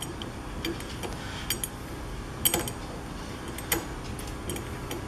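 Light metallic clicks and ticks, a few scattered seconds apart, from a small screw being turned back into a hydraulic floor jack by hand. The loudest click comes about two and a half seconds in.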